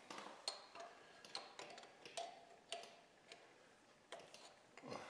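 Faint, irregular light metallic clicks of an open-end wrench and steel nuts being handled as manifold studs are set into a Model T Ford engine block by the two-nut method.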